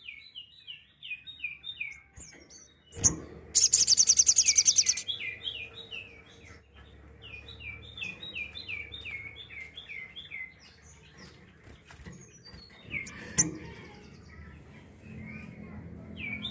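Brown-throated sunbird (sogok ontong) calling: series of short, sharp down-slurred chirps at about five a second, broken about three and a half seconds in by a loud, very fast, high-pitched trill lasting about a second and a half — the 'tembakan' (shooting) call — then more chirp series and softer chatter.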